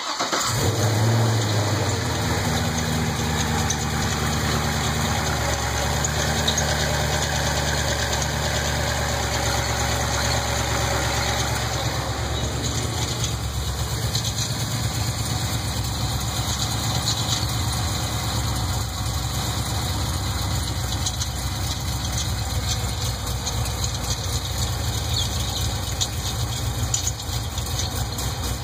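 GM LS2 6.0-litre V8 engine idling steadily with a knocking noise that the owner suspects is a lifter knock.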